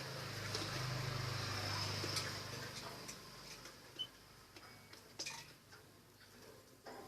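Scattered light ticks and clicks with a single short high chirp about four seconds in, typical of a small pet bird moving about, over a low steady hum that fades after the first couple of seconds.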